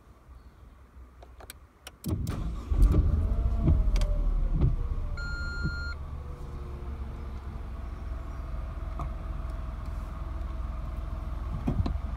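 Renault Clio 0.9 TCe three-cylinder turbo petrol engine started by push button: the starter cranks about two seconds in, the engine catches with a brief rev flare whose pitch falls away, then it settles into a steady, fairly quiet idle, heard from inside the cabin. A short electronic dashboard chime sounds near the middle.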